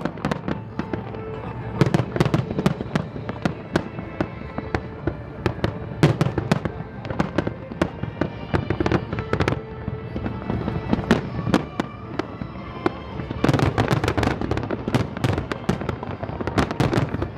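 Fireworks bursting in a continuous run of sharp bangs, growing to a dense cluster near the end. Music plays underneath.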